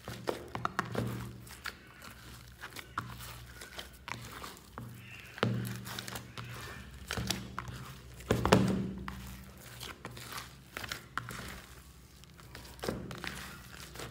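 Hands squishing and kneading glitter slime mixed with shaving foam, making a run of small sticky clicks and pops. There are heavier squelches about five and a half and eight and a half seconds in.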